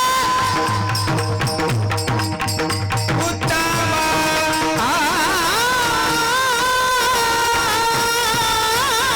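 Devotional kirtan music: a singer over rhythmic drum and cymbal strokes. The percussion stops about three and a half seconds in, and from about five seconds the singer holds one long, high note with vibrato.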